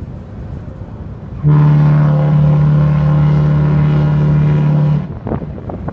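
Cruise ship Norwegian Jade's horn sounding one long, deep, steady blast of about three and a half seconds, starting about a second and a half in and cutting off sharply. Wind buffets the microphone before and after the blast.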